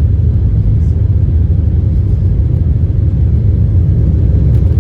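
Steady low rumble of an airliner heard from inside the cabin, with no distinct events.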